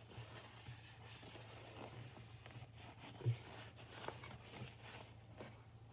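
Faint handling and rubbing sounds as debris is cleaned off a phone's screen, with small clicks and one short knock a little past halfway.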